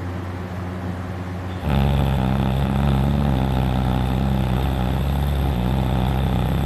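A person snoring: one long, loud snore lasting about five seconds, starting a little under two seconds in, low and steady in pitch, with the uvula vibrating.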